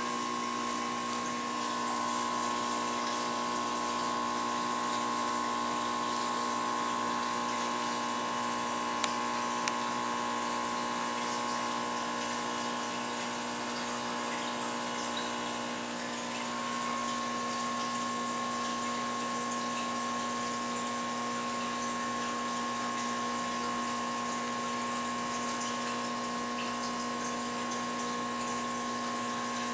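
Aquarium filter pump running: a steady hum with two held tones over an even hiss of moving water.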